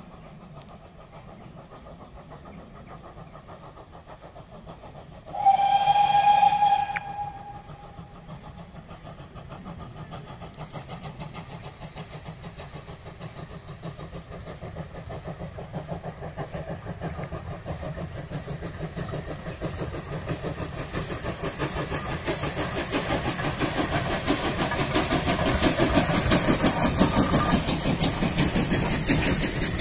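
GWR 6400 class pannier tank steam locomotive No. 6412 sounds one short blast on its steam whistle about five seconds in. Then its chuffing exhaust and wheels on the rails grow steadily louder as it approaches and passes with its coaches.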